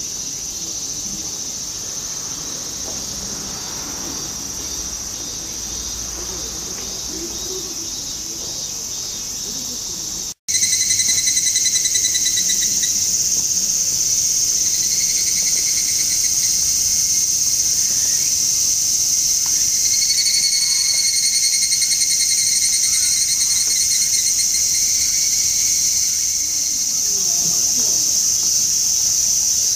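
Summer cicadas calling in a steady high chorus, with evening cicadas (higurashi) giving rapid pulsed phrases now and then. The sound drops out for an instant about a third of the way in and comes back louder.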